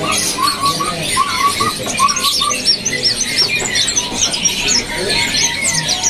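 Many small caged songbirds chirping at once, a dense mix of quick high chirps and whistled notes. Under them a repeated short lower call goes on for the first two and a half seconds, then stops.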